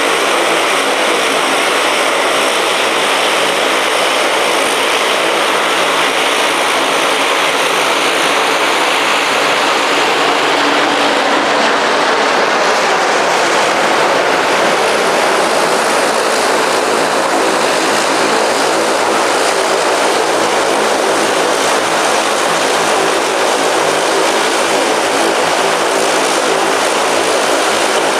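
Two Westland Sea King helicopters flying a low pass: the steady thrum of their main rotors and the whine of their twin turboshaft engines, loud throughout.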